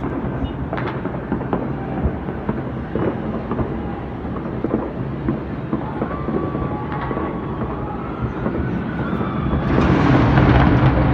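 Fireworks going off across a city: a steady, dense run of distant pops and bangs over a low rumble, getting louder about ten seconds in.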